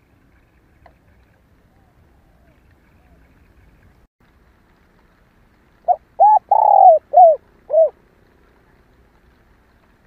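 Female spotted dove cooing one phrase of five arched notes, the middle one longest, about six seconds in. It is the female's call, played as a lure to excite male doves.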